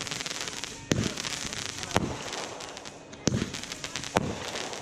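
Consumer fireworks going off: four sharp bangs about a second apart, with crackling between them.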